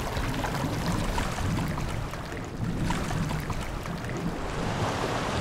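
Steady noise of moving water.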